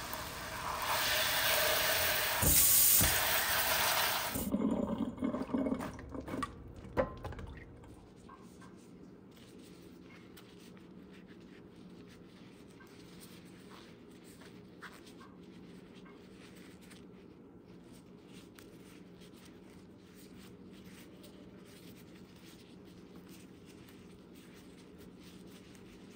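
Tap water running onto mushrooms in a stainless mesh strainer, stopping about four and a half seconds in. A few knocks follow, then faint rubbing and rustling of a paper towel wiping the mushrooms over a low steady hum.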